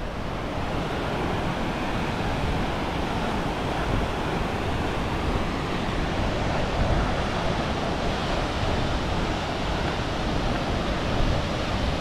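Glacier-fed waterfall pouring down a rock face onto boulders: a steady, even rush of falling water, loud enough to drown out a voice.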